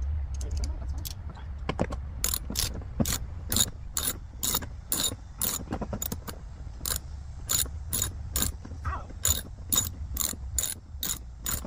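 Hand ratchet socket wrench clicking in an even run of about two to three clicks a second, starting about two seconds in, as a screw on the car door panel is turned.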